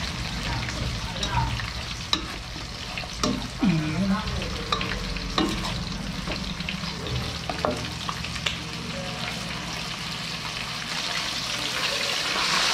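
Squash shoots and tomato sautéing in a pan: a steady sizzle with a utensil stirring and clinking against the pan. The sizzle swells louder near the end.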